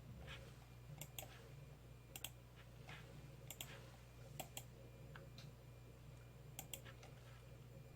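Faint, scattered clicks from someone operating a computer, several coming in quick pairs like double-clicks, over a steady low hum.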